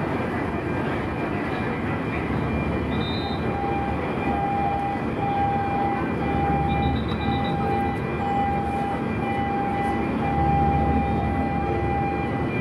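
Steady engine and wind noise aboard the Blue Star Naxos car ferry. From a few seconds in until near the end, an electronic warning beeper sounds at one pitch, about once a second.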